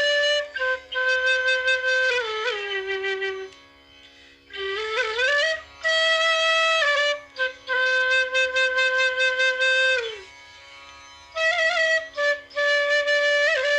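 Bamboo bansuri, a Punam Flutes C natural medium, played solo: a slow melody of held notes with slides between pitches, broken by two short breath pauses at about four and about ten seconds in.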